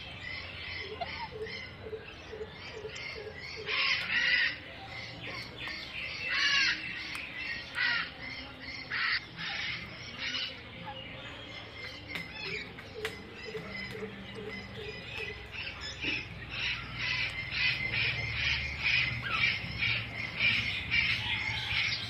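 Indian ringneck parakeets calling in rapid, short chattering squawks, several a second. Louder calls come around four seconds in and between about six and ten seconds, and the calls build into a dense, fast run over the last several seconds.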